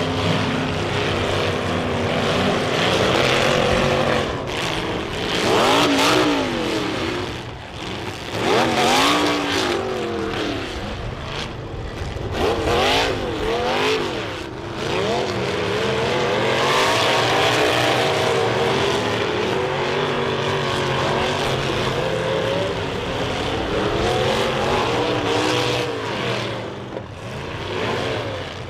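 Compact demolition-derby car engines revving hard, pitch climbing and falling again and again as the cars rev up to ram each other, with sudden bangs of impacts scattered through.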